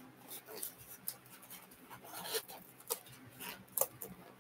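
Faint handling noises from a small Yixing teapot: a handful of light, irregular clicks and taps as it is picked up and turned over in the hands.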